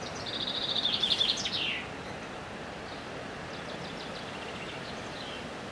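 A bird singing: a fast run of repeated chirps ending in a falling flourish in the first two seconds, then a fainter phrase from about three seconds in, over a steady hiss of background noise.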